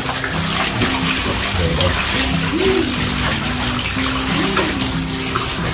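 Water running and splashing steadily, with background music of held low notes underneath.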